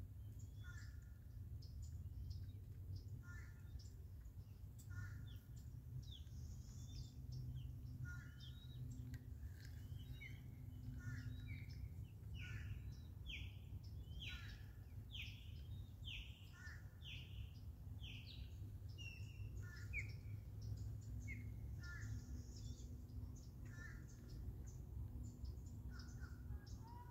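Birds calling: a short call repeated every second or two, and a run of quick downward-sliding notes, about one a second, through the middle. A steady low rumble lies underneath.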